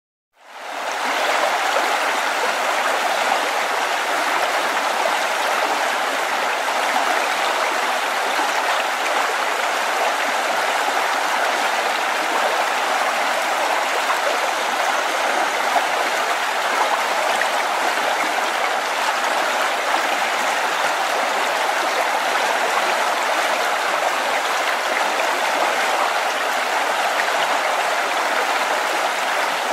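River stream flowing over rocks, a steady rushing and babbling of water that fades in over the first second.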